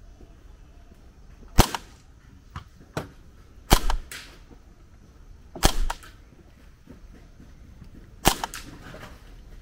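An airsoft replica of a World War II M1 carbine firing about five sharp, snappy shots at irregular intervals. Several shots are followed a fraction of a second later by a second, smaller knock.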